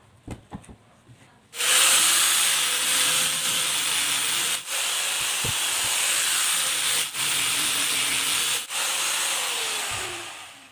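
Angle grinder fitted with a sanding disc sanding the edges of pallet-wood boards: it starts abruptly about a second and a half in and runs with a steady high whir and the hiss of abrasive on wood, with three very short breaks. Near the end it spins down, its pitch falling. A few light knocks of wood being handled come before it starts.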